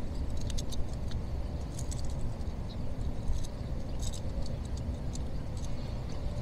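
Light metallic clicks and rattles of a crankbait's treble hooks being worked free from a small bass's mouth by hand, a few times, over a steady low rumble of wind on the microphone.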